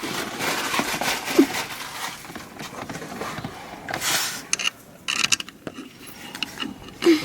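Hand tools and metal parts clicking, scraping and rattling irregularly while a new water pump is fitted, with a louder scraping stretch about four seconds in and a few brief high squeaks.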